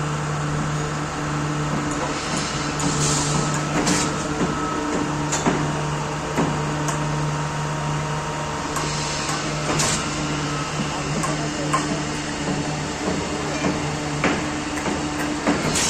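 Concrete-pumping machinery running with a steady low drone, with scattered sharp metallic knocks and clangs from work on the site.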